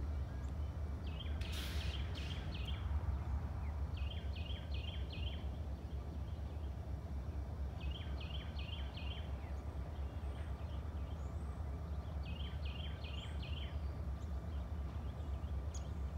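Diesel-electric locomotives running with a steady low rumble as they move slowly. A songbird sings a short phrase of about five quick chirps every three to four seconds, and a brief hiss comes about two seconds in.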